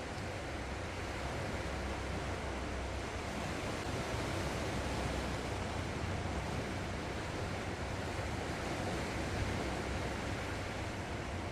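Sea surf washing on the shore: a steady, even noise with a low rumble underneath.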